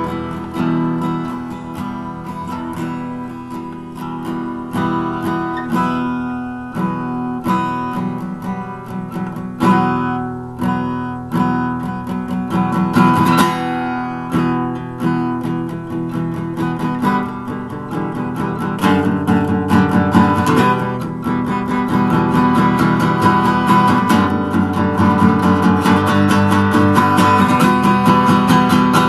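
Acoustic guitar strummed solo, chords ringing between strokes; about two-thirds of the way through the strumming becomes busier and louder.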